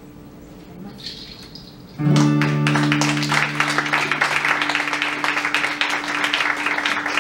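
An acoustic guitar chord is strummed about two seconds in and rings out for a few seconds, while audience applause starts up with it and carries on.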